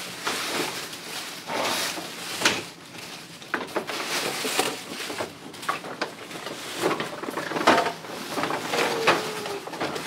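Tissue paper and paper gift bags rustling and crinkling as children rummage through them and pull presents out, with many short irregular crackles.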